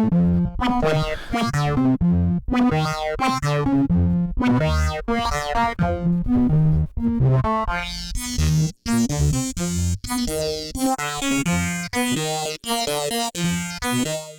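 Blipblox synthesizer sequence playing through a Eurorack modular synth's filters and mixer: a repeating pattern of short synth notes over a bass line. About halfway through, the tone turns much brighter as the filtering opens up the high end.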